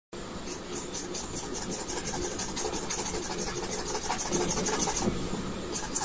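Metal pen nib scratching across paper in quick, repeated short strokes, several a second, as it hatches a cluster of curved lines; the scratching pauses briefly about five seconds in, then starts again.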